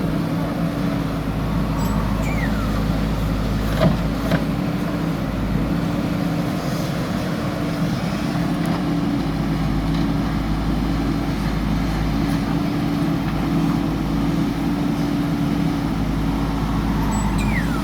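Diesel engine of a JCB backhoe loader running steadily while digging, with two sharp knocks about four seconds in.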